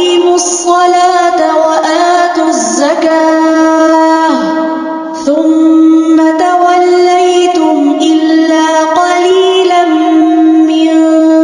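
Quran recitation: a single voice chanting in a slow, melodic style, holding long notes that glide up and down in pitch, with a short break about five seconds in.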